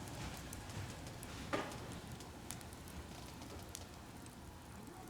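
Wood bonfire crackling: scattered small pops, with one sharper crack about one and a half seconds in.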